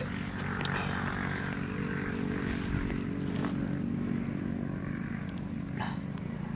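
A small engine running steadily as a low hum, under faint scratching of a thin stick poking into a hole in dry soil.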